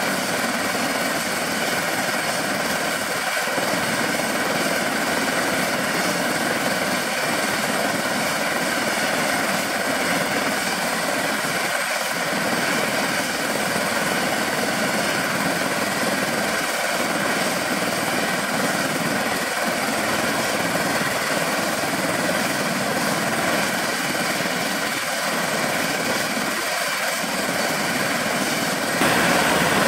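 Eurocopter EC120B Colibri helicopter's Turbomeca Arrius turboshaft running during start-up, a steady turbine sound with several constant tones, while the main rotor spins up. Near the end the sound gets louder.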